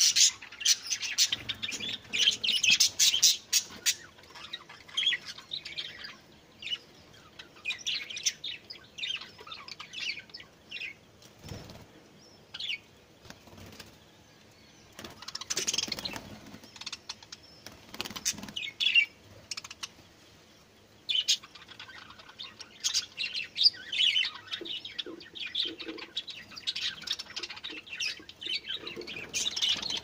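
Budgerigars and Java sparrows chirping in bursts, with wings flapping several times as birds take off and land.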